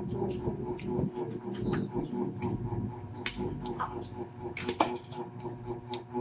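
Eating sounds: crisp fried chicken being torn apart by hand and chewed, with scattered clicks and taps of spoons on plates, the sharpest click about five seconds in. A steady hum runs underneath.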